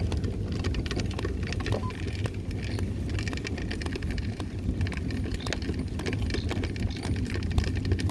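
Wheels rolling over a rough outdoor path: a steady low rumble with many small rattling clicks.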